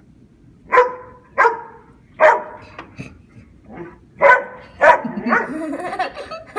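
Dogs barking, five loud sharp barks spaced about half a second to a second apart, with a few softer ones between, then a stretch of wavering whining near the end.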